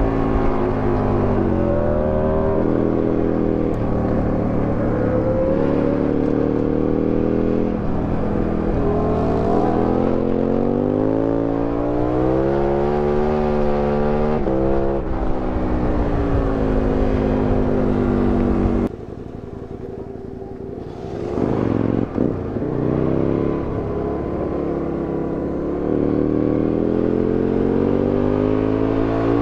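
Aprilia Tuono 1000R's V-twin engine heard from on board under hard riding, with wind noise. The revs repeatedly climb and fall as it accelerates and slows through bends. About two-thirds of the way through the throttle closes and the engine goes quieter for a couple of seconds before pulling hard again.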